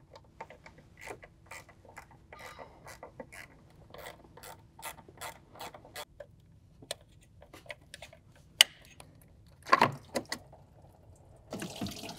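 Ratchet driver clicking in quick, uneven runs as the T20 Torx bolts are backed out of an electric coolant pump, followed by a louder clatter about ten seconds in.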